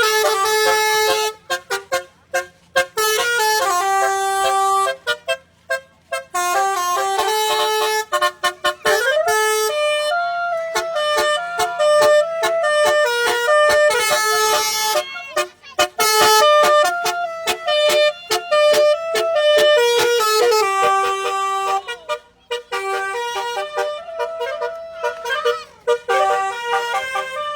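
Basuri telolet horn, a multi-trumpet vehicle horn, playing a melody of short notes that step up and down in pitch, with brief pauses between phrases.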